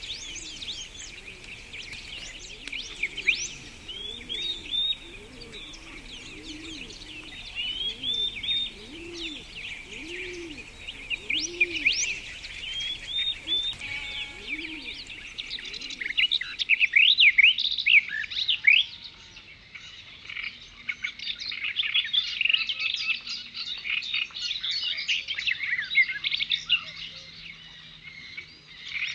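Many small birds chirping and singing together, denser and louder in the second half. Under them a low note repeats about once a second through the first half.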